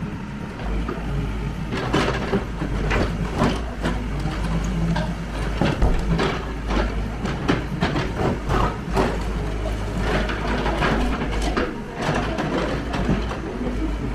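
Backhoe loader's diesel engine running, with many irregular knocks and crashes of concrete block and debris breaking and falling during demolition.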